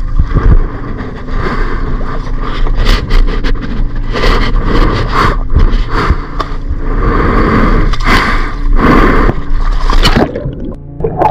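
Repeated irregular scraping and knocking over a steady low hum; the hum stops about ten seconds in.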